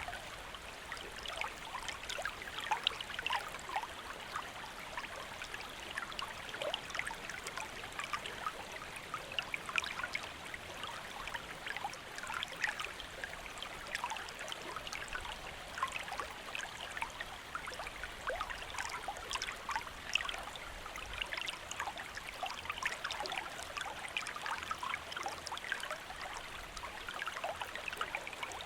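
A shallow stream flowing steadily, a constant burble of water over rocks made up of many small, quick splashes and gurgles.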